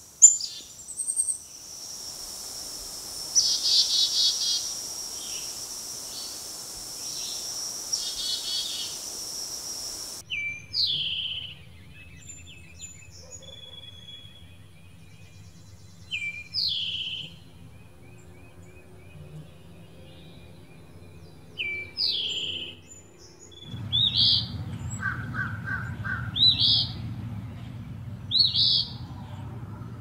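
A chickadee calling its buzzy 'chick-a-dee-dee-dee' over a hissy recording. Then an eastern towhee gives a single 'tow-hee' call about every five to six seconds over a low hum. In the last few seconds another bird's call repeats about every two seconds over a low rumble.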